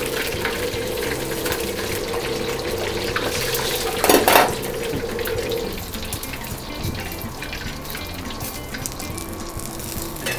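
Hot oil at about 190–200 °C ladled again and again over the skin of a bone-in chicken leg in a wok, pouring and sizzling as it crisps the syrup-glazed skin, with one louder splash about four seconds in.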